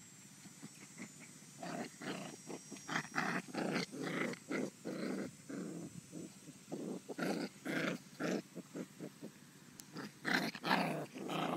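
Two puppies play-fighting, growling and grunting in short bursts that start a second or two in, with a brief lull about halfway through.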